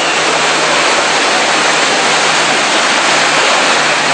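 Steady loud rush of water as a dump truck drives through street floodwater, with a low steady hum of its engine underneath.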